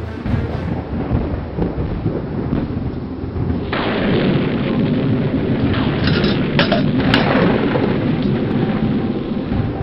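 Thunder rumbling heavily, with a sudden louder, brighter crash a little under four seconds in and a few sharp cracks around seven seconds.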